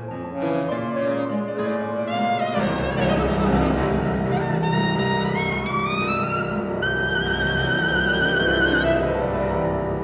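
Alto saxophone and piano playing together. About two and a half seconds in, the piano thickens into a dense low rumble, and over it the saxophone climbs step by step to a high held note with vibrato, which breaks off shortly before the end.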